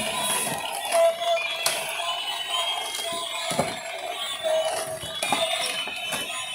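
Battery-operated toy animals, a walking elephant and dinosaurs, playing tinny electronic tunes and sound effects over one another, with a few sharp clicks.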